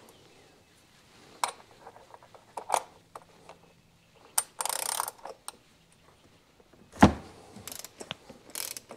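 Ratchet turning an 87 mm oil filter housing socket to loosen the oil filter cap on a BMW N54 engine: scattered ratchet clicks and metal clinks, a short run of ratcheting about halfway, and one heavier knock late on.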